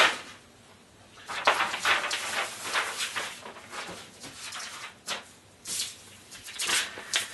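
Paper templates rustling and crinkling as they are handled, a string of short, uneven rustles starting about a second and a half in.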